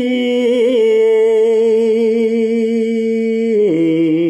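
A man chanting Khmer verse in the pilap (lament) recitation style, holding one long drawn-out vowel on a steady note that wavers slightly. About three and a half seconds in, the note drops to a lower pitch.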